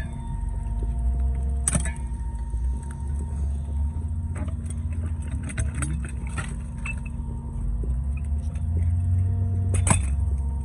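The engine of a concrete line pump running steadily, with occasional sharp metallic clanks and knocks.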